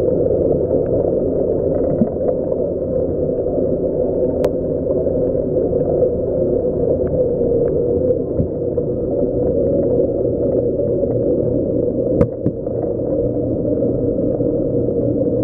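Steady low rumble and water noise from a coral frag tank's pumps and circulating water, with two short clicks, about four seconds in and about twelve seconds in.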